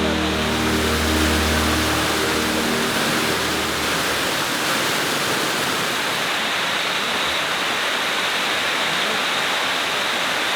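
Waterfall pouring into a rocky gorge, a steady dense rush of falling water. Soft background music fades out in the first few seconds.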